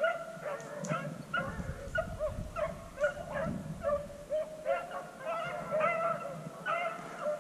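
A pack of beagles barking and baying, a few short calls every second, some overlapping.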